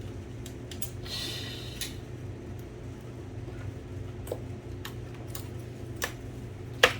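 Small metal clicks and taps of typewriter parts being worked loose with hand tools, with a short scrape about a second in and one sharp, louder click near the end, over a steady low hum.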